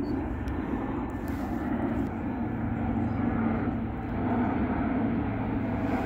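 Steady low drone of an airplane's engines passing overhead, continuous throughout.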